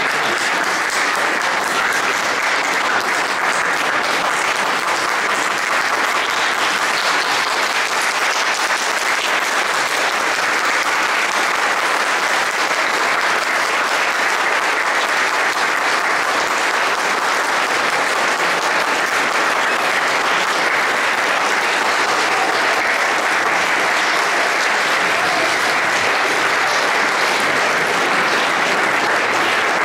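Audience applauding, a dense, steady clapping that holds at an even level throughout.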